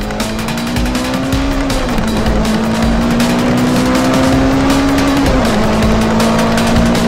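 Car engine sound effect: a steady engine drone that rises slowly in pitch and drops back twice, over background music.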